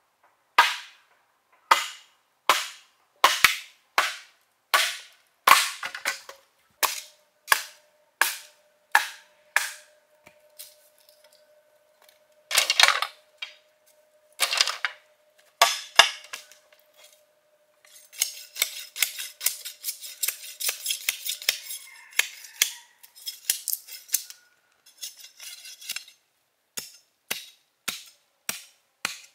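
Bamboo being chopped: a steady run of sharp, cracking blows, a little over one a second, with a few heavier strikes midway and then several seconds of quick, dense clatter.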